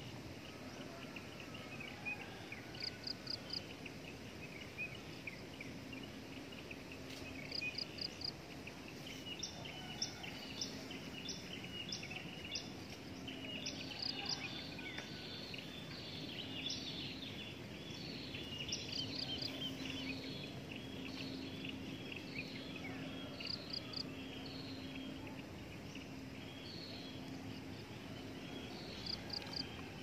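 Birds calling in the trees with an insect chorus: many quick, high, downward-sliding notes and, every few seconds, a short burst of four rapid high ticks, over a steady high chirring. A faint low hum comes and goes underneath.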